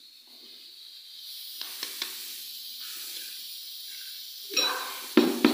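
Free-range eggs being cracked against the rim of a plastic bowl: a few light clicks, then several sharp knocks near the end, over a steady hiss.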